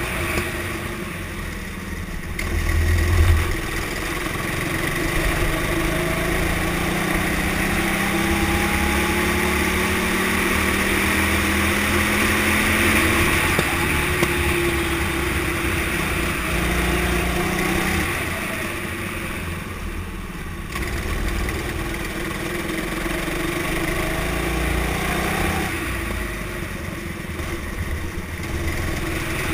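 Kart engine heard from onboard, its pitch climbing steadily along the straights and dropping off as the throttle lifts for corners, with a brief low thump about three seconds in.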